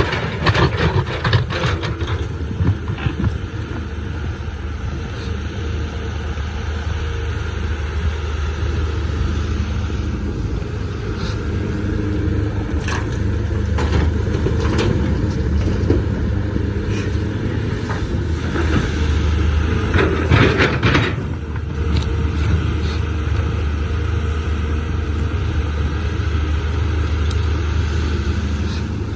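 Caterpillar 320C excavator's diesel engine running steadily under load while digging hard rock, with the bucket scraping and knocking against stone at intervals, loudest about two-thirds of the way through.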